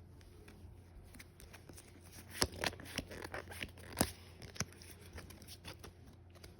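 Pokémon trading cards being handled and slid past one another, with soft scattered clicks and a couple of sharper snaps about two and a half and four seconds in.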